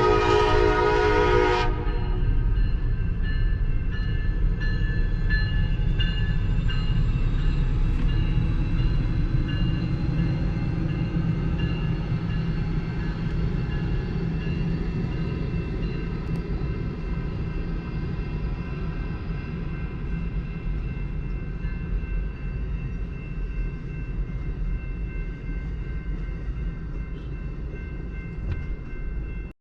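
Train horn sounding a chord that cuts off under two seconds in, then the train's steady rolling rumble with a faint high whine, slowly getting quieter.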